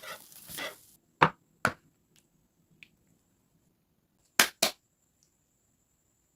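Sharp knocks of a metal cooking utensil striking hard, in two quick pairs, one about a second in and one past the middle, after a short hiss at the start.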